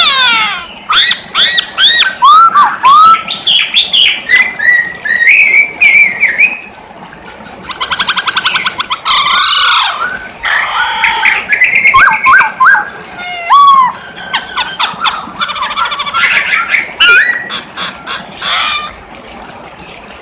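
Poksay hongkong, a laughingthrush, singing loudly and continuously: a varied stream of whistled glides and chirps, broken by fast rattling trills about eight seconds in and again near the end.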